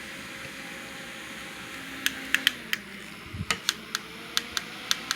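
A run of about ten sharp plastic clicks over three seconds, starting about two seconds in, as the small USB portable table fans and their switches are handled to turn them off, over a faint steady background noise.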